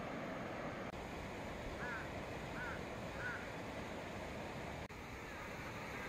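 Mountain valley stream rushing steadily, with a bird giving three short chirps about two to three and a half seconds in.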